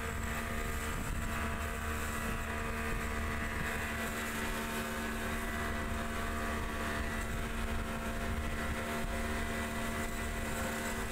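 Speedboat's outboard motor running steadily at speed, a constant drone over the rush of water and spray.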